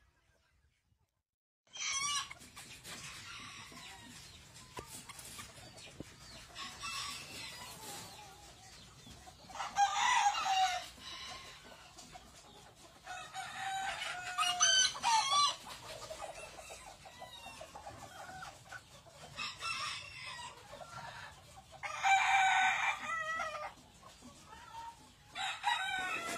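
Rosecomb bantam roosters crowing, several crows in turn, with hens clucking between them; it starts after about two seconds of silence.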